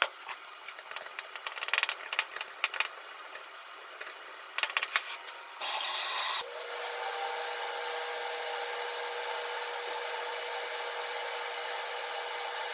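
A spoon stirring sauce in a small ceramic bowl: irregular scrapes and light clicks of metal on ceramic. About six seconds in there is a short, loud hiss, after which a steady mechanical hum with a constant tone runs on.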